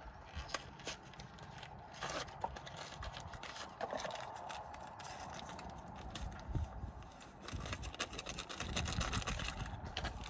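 Paper pouch of a Jell-O gelatin packet crinkling and rustling as it is torn open and emptied, with scattered small clicks and scrapes and a brief louder rustle about two seconds in.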